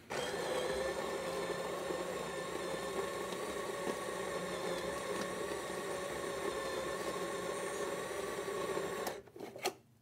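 Capresso Infinity burr coffee grinder running steadily, grinding coffee beans at its extra-fine setting. The motor stops about nine seconds in, followed by a couple of clicks.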